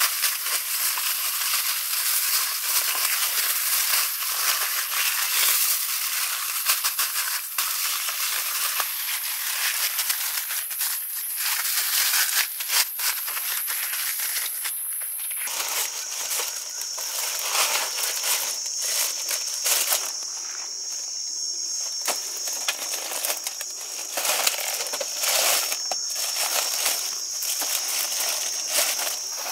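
Aluminium foil crinkling and crackling in a dense run of small crackles as hands fold and press it around a large wrapped fish.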